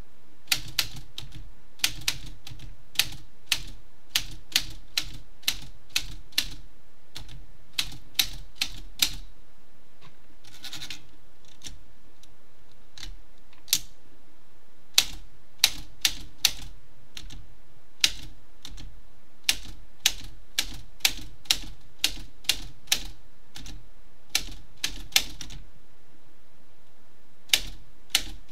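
Typewriter keys being struck in irregular runs of sharp clicks, with a couple of pauses lasting a few seconds.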